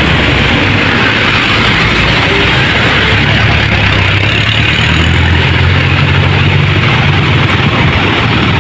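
Diesel engine of a large coach bus running at low speed as it crawls through deep potholes, a low drone that grows stronger from about three seconds in, with a steady hiss over it.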